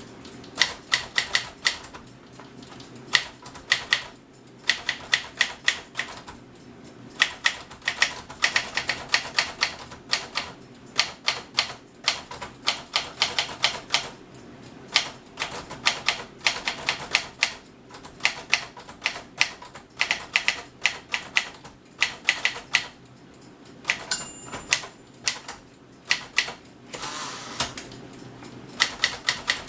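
Smith-Corona Corsair Deluxe portable manual typewriter being typed on: runs of sharp key strikes, several a second, broken by short pauses, with a brief ringing tone about four-fifths of the way through.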